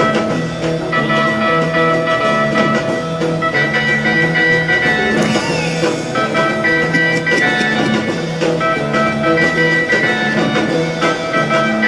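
Instrumental background music with guitar and sustained chords in a steady repeating pattern.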